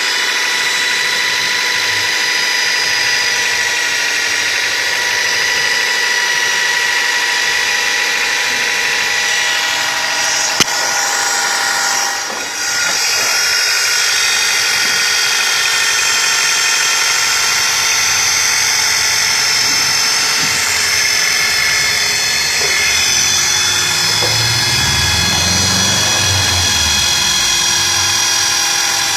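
Nissan Tiida engine running with a steady, high-pitched grinding whine, like a bench grinder sharpening a knife, from the accessory-belt area. The owner says it is not caused by any pulley. A single sharp click sounds about ten seconds in.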